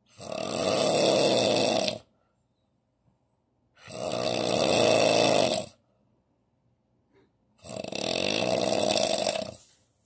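A man asleep on his side with his mouth open, snoring heavily: three long snores of about two seconds each, one every four seconds or so, with quiet pauses between.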